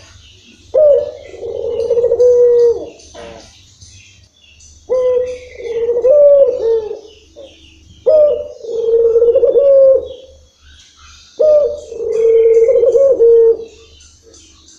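Barbary dove (ringneck dove) cooing in long-drawn phrases. There are four coos, each about two seconds long and opening on a brief higher note before a held lower tone, coming every three to four seconds. Faint high chirps sound in the background.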